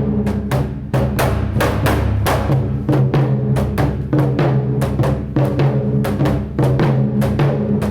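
Japanese taiko drums played in an ensemble: a fast, driving run of hard strikes over the low ringing of the big drums.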